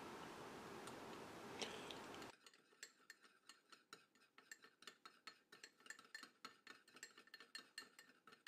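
Faint clinks and scrapes of a metal teaspoon stirring dry seasoning in a small ceramic bowl: irregular light ticks, a few a second. For the first two seconds a faint hiss sits under it, then cuts off.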